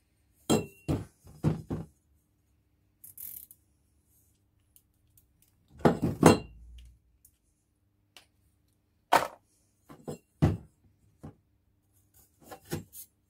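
Stainless steel exhaust tubes and mandrel bends clinking and knocking as they are picked up, handled and set down on the workbench, some knocks with a short metallic ring. The loudest cluster of knocks comes about six seconds in.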